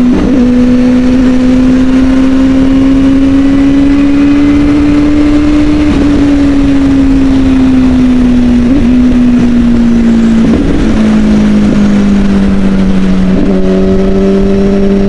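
Kawasaki ZX-10R's 1000 cc inline-four engine running at a steady high cruise on the highway. Its note rises a little, then eases down over the second half as the revs drop, with steady wind noise on the microphone.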